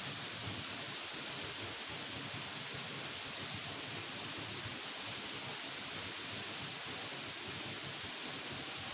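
Waterfall's falling water making a steady, unbroken rushing hiss.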